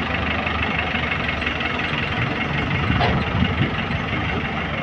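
Diesel dump truck engine running steadily at low revs, a little louder for a moment about three seconds in.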